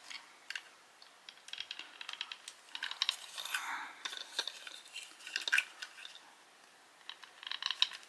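Small plastic parts of a toy motorcycle being handled and pressed into place: scattered light clicks and taps, with a short scraping rub about three and a half seconds in.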